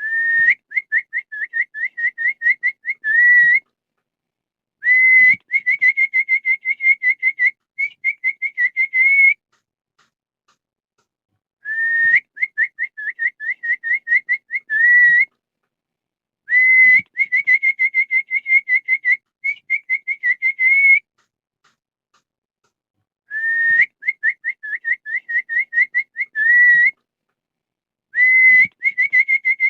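Dog whistle blown in quick runs of short high chirps, several a second, each with a little upward flick at the end. Runs last three to four seconds and are separated by short pauses; the same pattern repeats about every eleven seconds.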